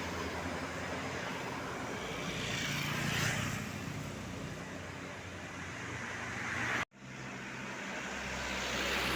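Road traffic: vehicles passing close by, one swelling and fading about three seconds in and another near the end. The sound cuts out completely for an instant about seven seconds in.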